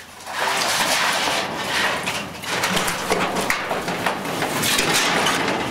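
Long corrugated metal roofing panel rumbling and scraping as it is pushed and slid up over the roof edge, with scattered sharper knocks. The noise starts just after the beginning and fades near the end.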